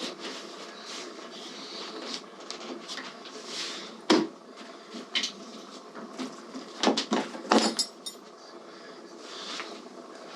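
Scattered clicks and knocks of hard objects being handled, with a sharp knock about four seconds in and a cluster of knocks around seven seconds.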